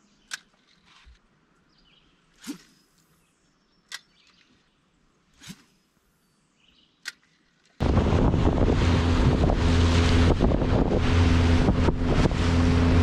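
A few faint, sharp clicks about every second and a half, then, after a sudden cut about eight seconds in, a boat under way: a steady low engine hum under heavy wind noise buffeting the microphone.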